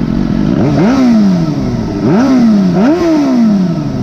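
Suzuki sport bike's engine revved from idle in three quick blips, each a sharp rise in pitch followed by a slower fall back toward idle; the second and third come close together.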